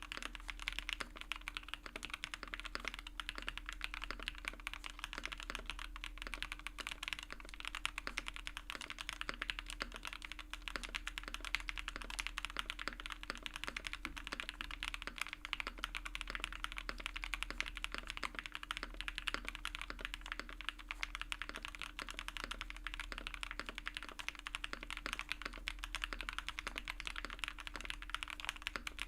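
Fast continuous typing on a custom mechanical keyboard with HAIMU RAW linear switches, a dense stream of key clacks.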